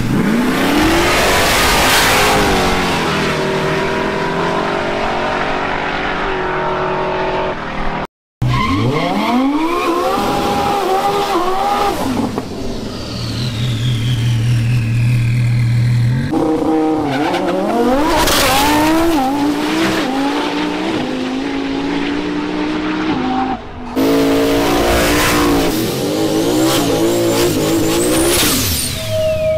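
Several high-powered cars accelerating hard at full throttle, engine pitch climbing and dropping back at each gear change, with abrupt breaks about eight seconds in and again near twenty-four seconds.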